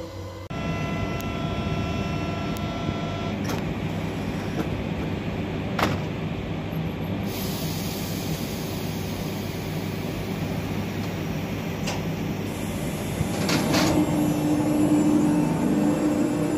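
Double-deck RER commuter train standing at a station platform, its onboard equipment giving a steady hum. A high multi-pitched tone sounds for about three seconds near the start, and there are a few sharp clicks. Near the end a louder low whine sets in as the train starts to move off.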